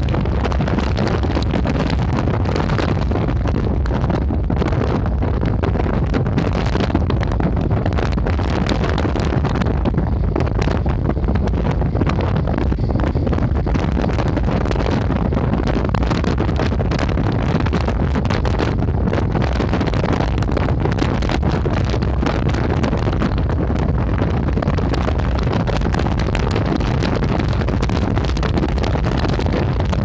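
Wind rumbling steadily on the microphone over small sea waves washing and breaking against shoreline boulders.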